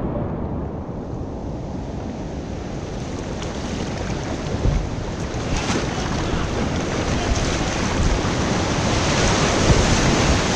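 Rushing whitewater of a rocky river rapid, heard through an action camera's microphone: a steady rush of water that grows louder and fuller toward the end.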